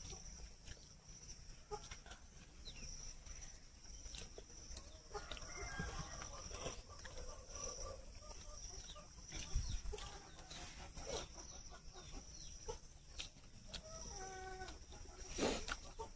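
Faint clucking calls of domestic fowl, a few short calls at a time, with scattered small clicks and a steady high-pitched whine.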